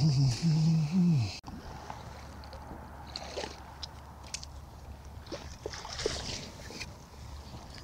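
A man's voice briefly at the start. Then, after an abrupt cut, scattered faint clicks and taps of fishing tackle being handled at the water's edge over a steady low rumble.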